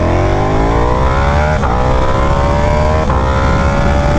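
Sportbike engine accelerating hard, its pitch climbing steadily, with two quick upshifts about one and a half and three seconds in, each a brief dip before the climb resumes.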